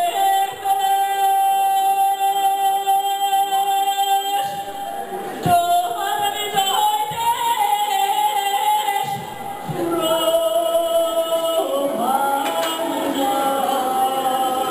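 A woman singing a Bulgarian song into a handheld microphone, holding long drawn-out notes. There is a short break about five seconds in, and the pitch steps up near the end.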